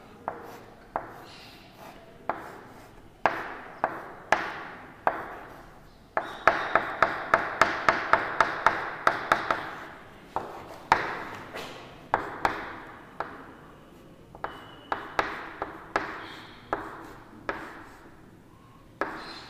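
Chalk tapping and scraping on a blackboard while writing and drawing: irregular sharp taps, with a quicker run of about four taps a second in the middle.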